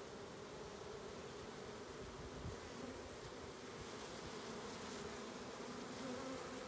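A swarm of honey bees buzzing steadily, a dense many-winged hum, as the cluster is worked into a new hive.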